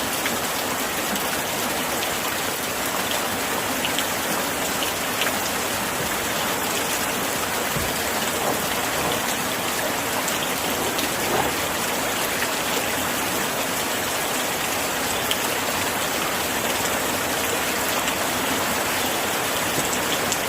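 Steady rain falling against window glass: an even, dense hiss with scattered small drop ticks.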